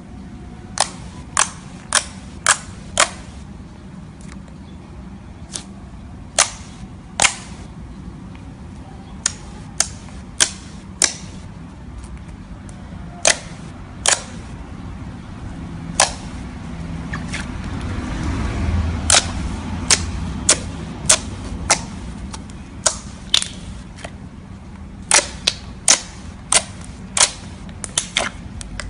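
Slime being squeezed and pressed, trapped air popping out in sharp clicks at irregular spacing, sometimes several in quick succession.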